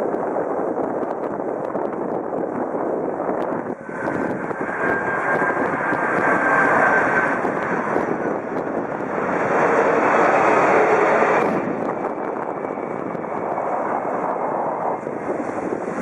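Boeing 767 airliner's jet engines running during a landing, a steady noise with a faint high whine a few seconds in. The sound swells louder for a couple of seconds about two-thirds of the way through, then settles back.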